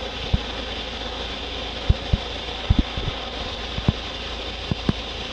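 Steady rushing noise with a low rumble, broken by irregular dull thumps, several coming in quick pairs.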